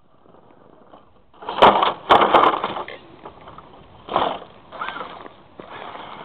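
Axial SCX10 radio-controlled scale crawler climbing a rock ledge: motor, gears and tyres grinding over rock in irregular bursts, the first and loudest with a few sharp clicks in it.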